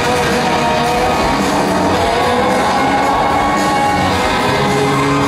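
Loud background music with sustained notes.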